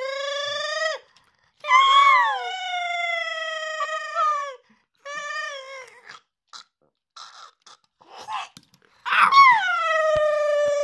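A series of long, high-pitched wailing cries. Each is held for one to three seconds and slides down in pitch at its end. A quieter stretch of short chirps in the middle is followed by a loud cry that falls sharply in pitch.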